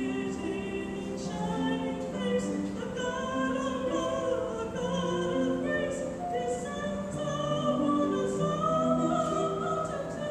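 Slow classical music with a singing voice: long held notes over a sustained low accompaniment.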